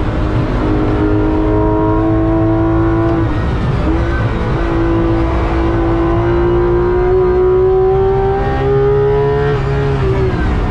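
Porsche 991.2 GT3 RS's 4.0-litre flat-six heard from inside the cabin at full load, its pitch climbing steadily through the revs. About three seconds in there is a quick upshift, then a long climb through the next gear, and the pitch falls away near the end.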